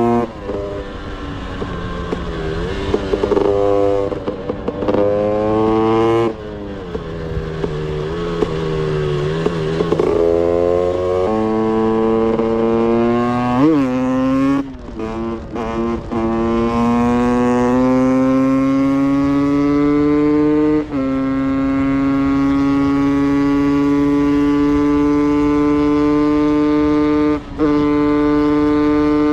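Two-stroke dirt bike engine at full throttle. Its pitch climbs steadily, drops suddenly at each upshift, and cuts out briefly a few times midway. It holds high, nearly steady revs for the last several seconds.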